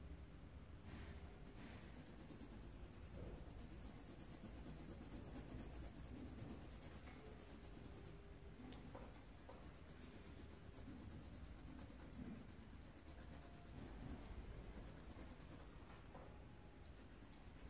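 Coloured pencil scratching faintly across paper in repeated shading strokes.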